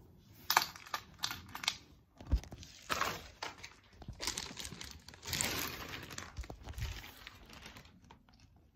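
Handling noise as the filming phone is picked up and carried: irregular clicks, knocks and rustling with a few dull thumps, the loudest a low thump about two and a half seconds in.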